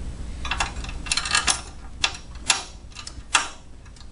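Loose steel bolts and washers clinking as they are picked up and handled: a few quick clusters of clinks, then three sharp separate clicks in the second half.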